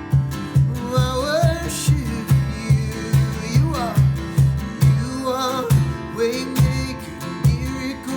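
Worship-band music: a guitar with a steady pulsing beat of about three strokes a second under a wavering melody line.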